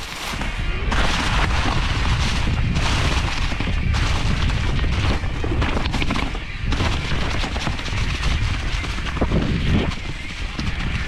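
Wind buffeting the microphone with a heavy, steady low rumble while a mountain bike rides a rough trail, its tyres and frame giving many short knocks and rattles.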